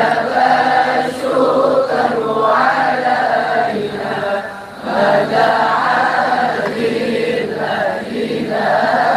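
A group of men chanting an Arabic sholawat (devotional song to the Prophet) together through loudspeakers, with a short pause about halfway through.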